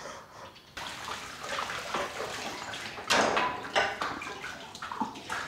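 Dishes being washed by hand in a stainless-steel kitchen sink: water splashing, with crockery clinking several times.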